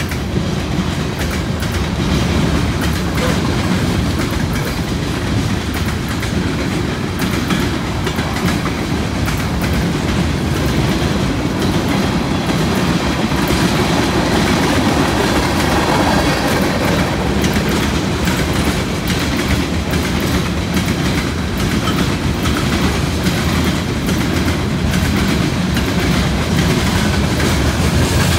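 Loaded freight cars of a mixed freight train rolling past at close range: a steady rumble of steel wheels on rail with clicking as the wheels cross rail joints.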